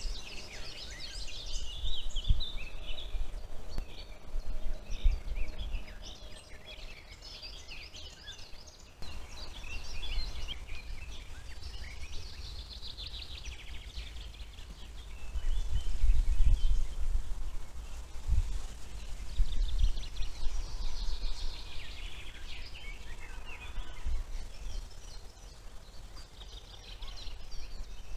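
Wild songbirds singing, several overlapping songs of quick chirps and warbles, over a low, uneven rumble.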